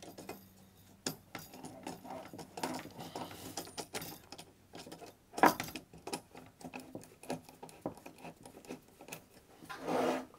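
Screwdriver work on small bolts and washers: irregular light metallic clicks, taps and rattles. One sharp knock stands out about five and a half seconds in.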